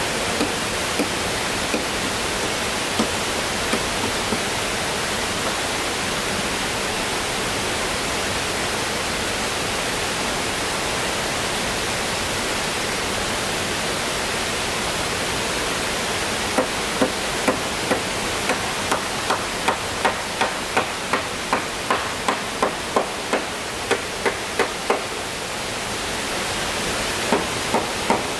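Steady rushing hiss with a few scattered knocks, then a little past halfway a fast, even run of sharp hammer blows on wood, about two a second, pausing briefly and starting again near the end.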